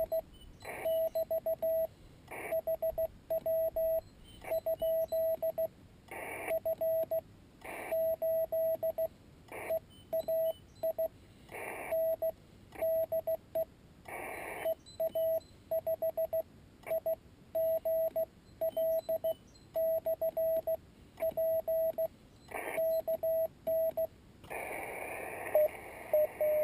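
Morse code sent on a paddle key, heard as the Yaesu FT-817ND transceiver's CW sidetone: one steady mid-pitched beep keyed on and off in dots and dashes, with occasional short noisy bursts. Near the end the sending stops and receiver hiss comes up.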